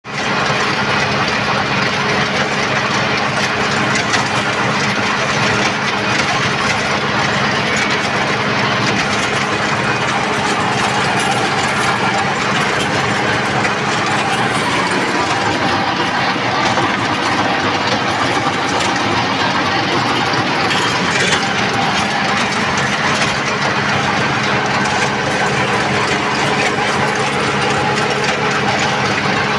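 Kubota MU5501 tractor's four-cylinder diesel engine running steadily at an even speed while the tractor works a field with a 6 ft rotary tiller.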